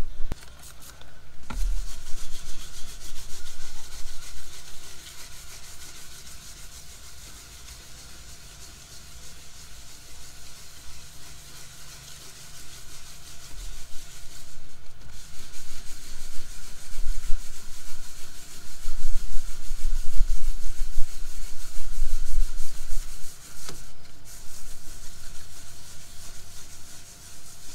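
600-grit sandpaper on a hand sanding block rubbing back and forth over fiberglass boat gelcoat, a steady scratchy sound broken by a few brief pauses. It is sanding down a raised spot in the gelcoat.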